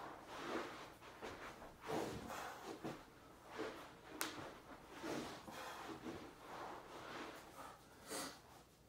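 A man breathing hard through his nose in short, uneven exhales while exercising, with the rustle of his clothes and body moving on a rug. There is one sharp click about four seconds in.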